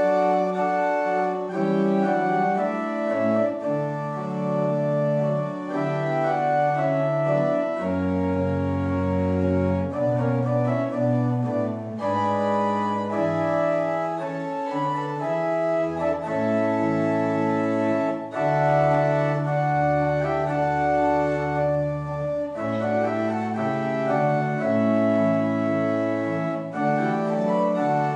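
Organ playing an offertory piece in slow held chords, with deep bass pedal notes moving underneath from about eight seconds in.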